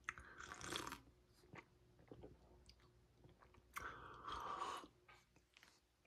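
A person chewing a mouthful of date square, faint, with two louder spells of about a second each, near the start and a little after the middle.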